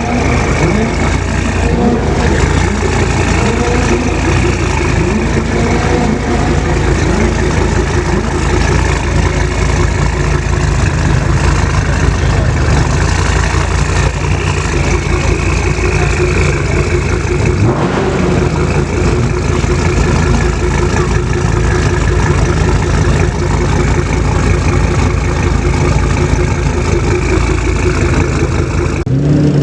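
Car engines idling with occasional revs, over a background of many voices. A steady engine note holds through the second half.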